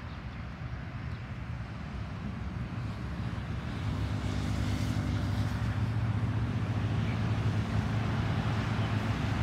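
Road traffic from a nearby street: vehicle engine and tyre noise that grows louder about four seconds in and stays up.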